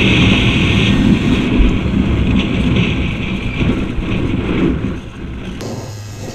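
Small Yamaha motorcycle with a Polini 60 cc kit running under way, its engine buried under heavy wind rush on the microphone. About five and a half seconds in the wind drops away and a steadier, quieter low engine hum remains.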